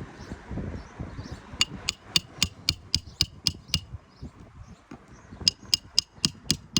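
A hand hammer striking roofing nails in an asphalt shingle, with a metallic ring on each blow. The blows come in two quick runs at about four a second, the second run starting about five and a half seconds in.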